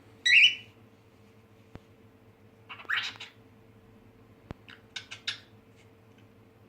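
Cockatiel calling: a loud high chirp at the start, a longer call about three seconds in, then a quick run of short chirps around five seconds.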